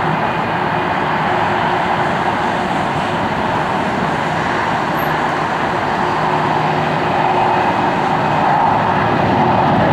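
Airbus A340-300's four CFM56 turbofan engines at taxi idle: a steady jet hum and rush that grows a little louder near the end.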